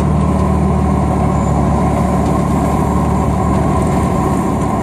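Pickup truck driving slowly along a street, its engine running steadily, mixed with the steady noise of tyres and skateboard wheels rolling on asphalt.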